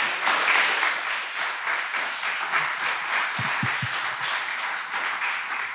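Audience applauding: a steady spread of many hands clapping.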